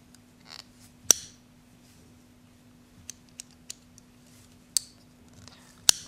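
Linder Iltis lockback pocket knife being worked open and shut by hand. Its blade gives sharp clicks as it snaps closed and as the lockback catches, the loudest about a second in and another just before the end, with a few faint ticks between.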